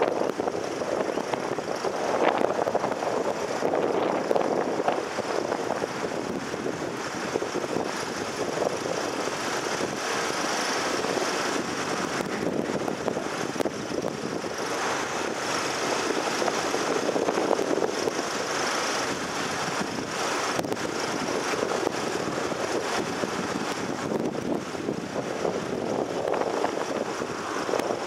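Traffic idling at a red light, picked up by a camcorder microphone on a car roof: a steady engine and traffic hum that swells and fades every few seconds.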